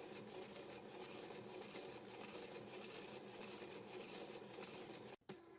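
Faint, steady mechanical hum of a 3D LiDAR scanner's stepper motor and servos driving its rotating, tilting mirror through a fast, coarse scan. The sound cuts out briefly about five seconds in.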